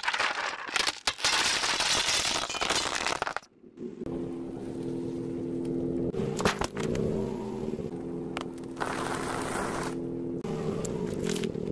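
A car tyre rolls over stacks of plastic plates, which crack and crunch in a dense burst for about three seconds. After a break, further snapping and crackling of things flattened under the tyre continues over a steady low hum.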